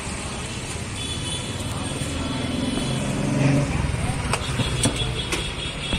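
A motorcycle engine running close by over steady street traffic noise, swelling louder about two to three and a half seconds in and then easing. A few light clicks come near the end.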